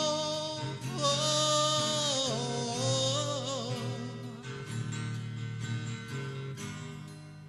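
Live acoustic guitar music: a voice holds long, wavering wordless notes over the guitar for the first few seconds. The acoustic guitar then plays on alone in plucked strokes, growing quieter near the end.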